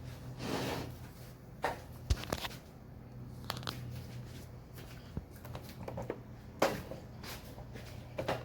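Scissors snipping and hair being tugged and pulled off a Dyson vacuum's brush bar: scattered sharp clicks and rustles at irregular moments.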